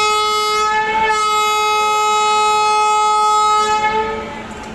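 Indian Railways locomotive horn sounding one long, steady blast, wavering briefly about a second in and stopping about four seconds in.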